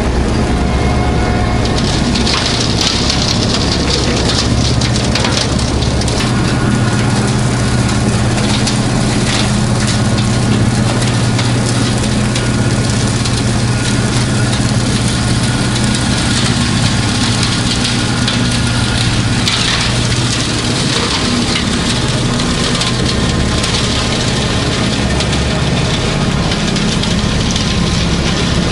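Kubota B2650 tractor's three-cylinder diesel running steadily, with the dense crackle of a rotary cutter (brush hog) shredding briars and undergrowth.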